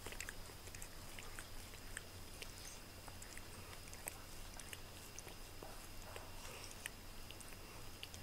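A black domestic cat grooming itself, its tongue licking its fur with faint, irregular small wet clicks.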